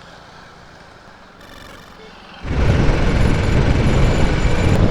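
Strong wind buffeting the microphone: a loud, low rumbling noise that comes in suddenly about halfway through, after a quiet stretch.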